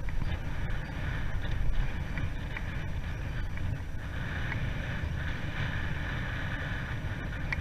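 Wind rushing over the microphone of a camera on a moving bicycle: a steady low rumble with a hiss above it and a few faint ticks.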